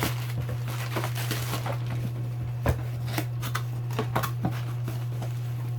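Hands handling a newly unboxed plastic motorcycle tail light and its packaging: scattered light clicks and rustles, a sharper click near the middle, over a steady low hum.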